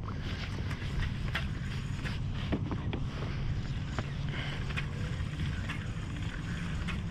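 Water lapping against a plastic kayak hull, with scattered light clicks and knocks over a steady low rumble.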